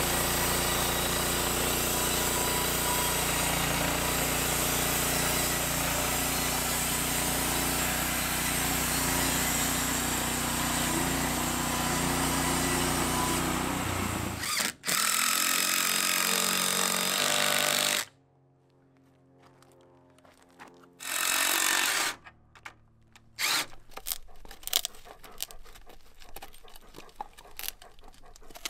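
Portable band sawmill running, its engine and blade cutting through a spruce log, steady for the first half and stopping at about eighteen seconds. Near the end, a dog crunching and gnawing a wooden stick in irregular crackly snaps.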